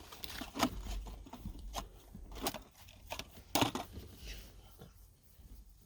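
Handling clicks and taps, a few sharp ones roughly a second apart, as an aluminium shift knob is screwed onto a car's gear lever.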